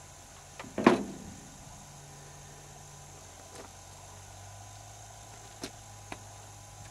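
PTR 91 rifle handled at a shooting bench: one sharp clack about a second in, followed by a few faint scattered clicks.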